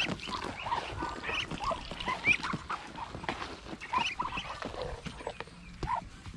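A flock of small ducklings peeping and calling over one another in many short calls, with scattered clicks and rustling.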